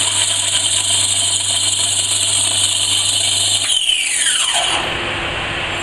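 Commercial stainless steel grain grinder's 3600 W motor running at full speed with a high-pitched whine and a low hum, then switched off about 3.7 s in: the whine falls in pitch as the motor spins down over about a second, leaving a quieter steady noise.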